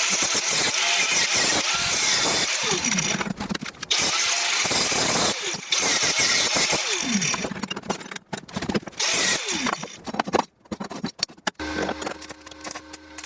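Angle grinder run in repeated bursts of a second or two, its motor dropping in pitch as it spins down each time the trigger is released. Near the end it gives way to a quieter, steady motor hum.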